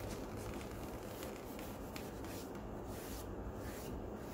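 Steady rubbing of a clean rag wiped over the face of a new Brembo brake disc, taking off brake cleaner and the disc's anti-rust oil coating.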